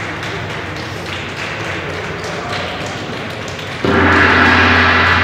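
Hand clapping, then a hanging gong struck once with a mallet about four seconds in. The gong rings on loudly with many steady tones over a deep low hum.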